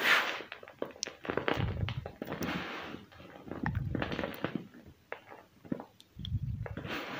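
Hands squeezing and crumbling soft slabs of black-dyed gym chalk and cornstarch, a dry crunching and crackling in about five bursts, with crumbs and powder falling from the fists onto the pile.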